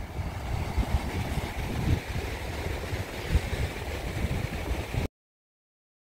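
Waves washing over a rocky shore, with wind buffeting the microphone in a gusty low rumble. The sound cuts off abruptly to silence about five seconds in.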